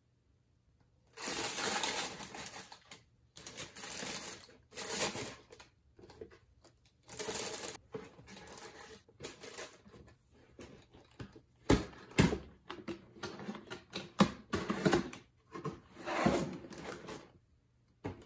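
Tissue paper crinkling and rustling inside a cardboard shoe box in irregular bursts as a pair of clogs is packed away, with two sharp knocks about two-thirds of the way through.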